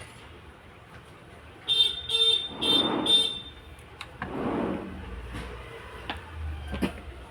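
A vehicle horn beeps four short times in quick succession, followed by a few sharp clicks.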